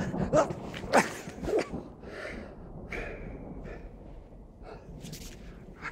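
A man grunting and gasping as he throws himself down to the floor, then breathing hard in short, fading breaths.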